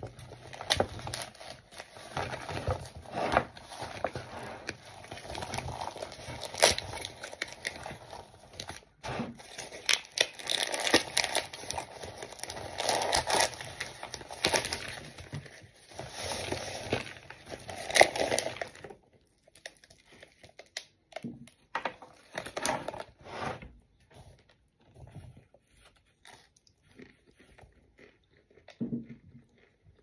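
Dampened cardboard cornstarch box and its paper being torn and peeled off a microwaved block of cornstarch, crinkling and crackling as soft, airy chunks crumble into a plastic bowl. About two-thirds of the way in it turns quieter, with scattered soft crunches and clicks as the chunks are handled.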